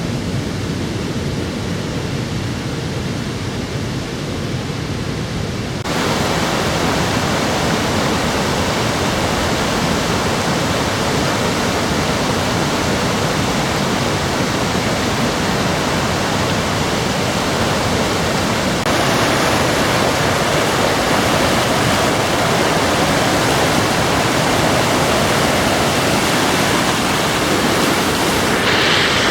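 Rushing water of a river and waterfalls, heard as a steady, loud noise that steps up abruptly about six seconds in and again at about nineteen seconds.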